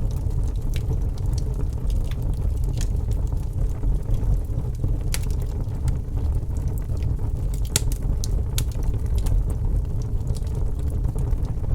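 Fire crackling: sharp, irregular pops and snaps, several a second, over a steady low rumble.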